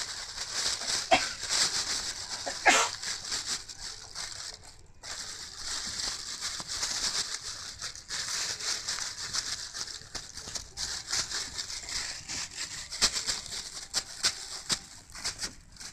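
Thin plastic bag crinkling and rustling in rapid, irregular crackles as a kitten paws, bites and wrestles with it, with a brief pause about five seconds in.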